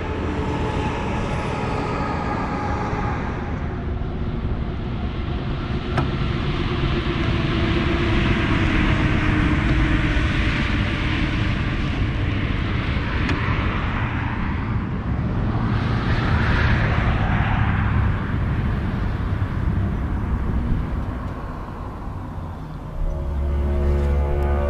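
Highway traffic passing: a semi-trailer truck and other vehicles go by, tyre and engine noise swelling and fading in turn. Near the end a deeper, louder rumble cuts in suddenly.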